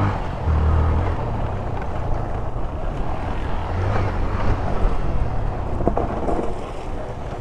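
Motorcycle engine running and revving up and down several times, on a rough muddy off-road track.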